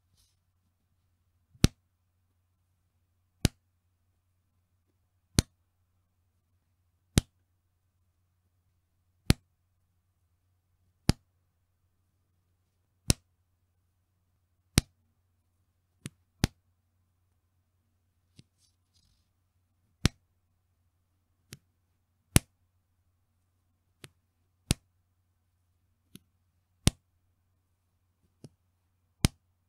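A bra's elastic band snapping, single sharp slaps about every two seconds, with softer snaps between them in the second half. A faint steady hum lies underneath.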